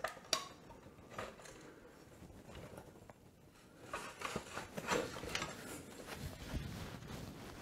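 Scattered metal clicks and clanks of parts and tools as a dirt bike's rear wheel and brake are put back together. There are two sharp knocks at the very start, and a denser run of clanks from about four to five and a half seconds in.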